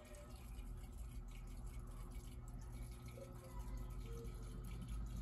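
Aquarium water trickling and dripping, with small bubbling blips, over a steady low hum from the tank's filter equipment.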